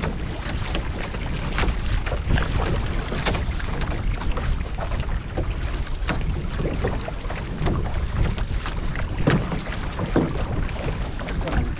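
Outrigger canoe being paddled hard: paddle blades catching and pulling through the water in repeated splashy strokes about once or twice a second, over water rushing along the hull and wind rumbling on the microphone.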